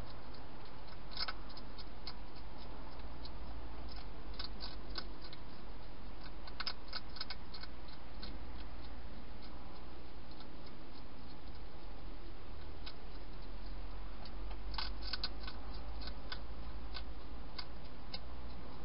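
A wild hedgehog crunching dry food, heard as irregular bursts of sharp clicks about a second in, around five and seven seconds in, and again near the end, over a steady low hum.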